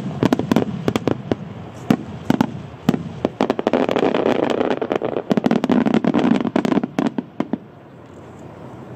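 Starmine fireworks barrage: rapid aerial shell bursts, many sharp bangs over dense crackling, building to a thick finale and stopping abruptly about seven and a half seconds in.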